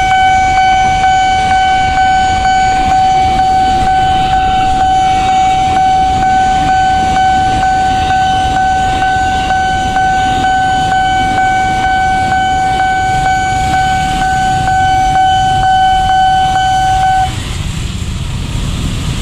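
A level crossing warning alarm sounds one continuous steady tone over the low rumble of a passing electric commuter train. The alarm cuts off suddenly a couple of seconds before the end, once the train has cleared the crossing.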